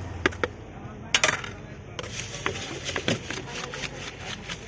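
Spoon knocking and scraping in a plastic mug as jhal muri (puffed rice with masala) is spooned in and stirred, a quick run of light clicks with a few sharper knocks about a second in.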